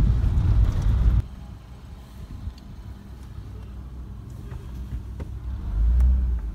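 Minivan driving slowly over a rough dirt road, heard from inside the cabin: a low rumble of tyres and engine with scattered knocks and rattles from the bumps. Loud at first, it drops suddenly about a second in to a quieter rumble, which swells again near the end.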